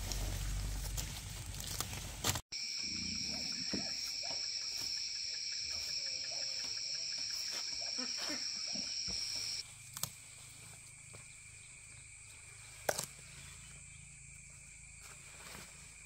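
Insects chirring in steady high-pitched drones, the loudest of which stops about nine and a half seconds in while fainter ones carry on. It opens with a low rumble that cuts off suddenly, and a couple of sharp clicks come later.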